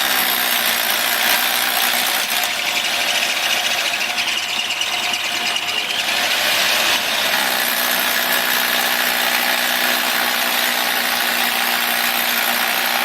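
Power saw cutting into a cinder block wall, its motor running steadily under load, with a brief change in pitch a few seconds in.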